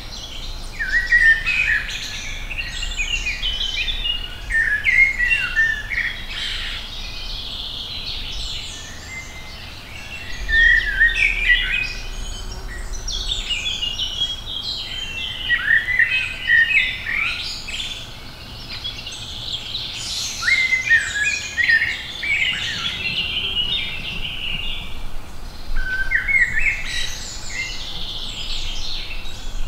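Woodland songbirds singing: chirping song phrases that come every few seconds, loudest around a couple of seconds in, about halfway through and near the end.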